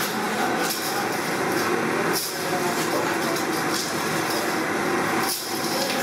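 Workshop metal-working machinery running: a steady, dense mechanical clatter that dips slightly about every one and a half seconds.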